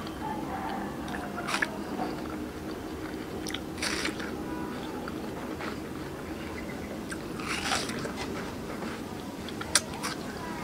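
Close-miked biting and chewing of fresh watermelon: several crisp, wet crunches as she bites into the flesh of the slice, a couple of seconds apart, with juicy chewing between.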